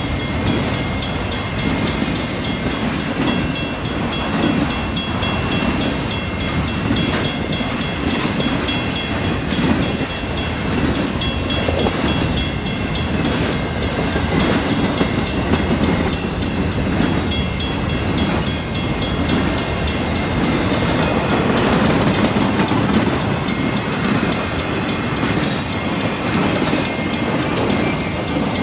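Freight cars of a long train, container cars among them, rolling steadily past a grade crossing: a continuous rumble of wheels on rail with faint clickety-clack, and several steady high ringing tones above it.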